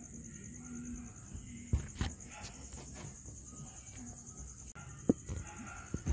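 A cricket chirping steadily in a high, rapidly pulsing trill, with a few sharp knocks, two of them about two seconds in and two near the end.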